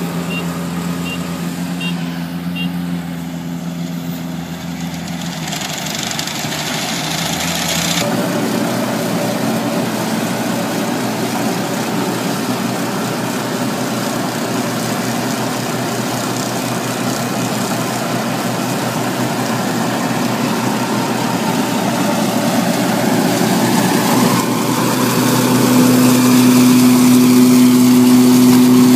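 Farm machinery engines running steadily. The sound changes abruptly about eight seconds in. After that, a tractor engine runs under load while its rear implement works a field, growing louder near the end with one strong steady tone.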